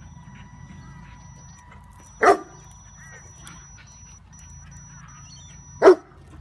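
A dog barking twice, about three and a half seconds apart, over a faint steady high whine.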